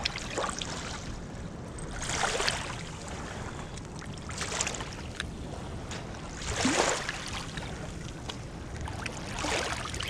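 Small waves washing in over the gravel of a river foreshore, four wavelets in turn, over a steady low rumble.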